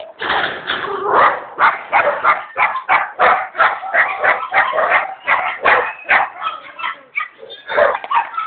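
A dog barking in a fast, continuous string, about three barks a second, stopping just before the end.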